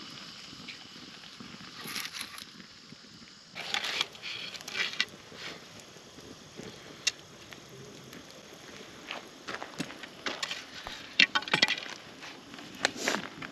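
Scattered crackles, pops and short scraping rustles from a wood campfire burning and a whole roasted pike being handled on a metal grill grate.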